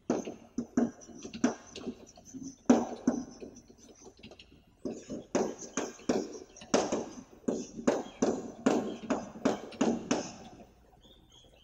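Chalk writing on a blackboard: a run of quick taps and scratches as two words are written. There is a short pause of about a second between the words, and the writing stops about a second before the end.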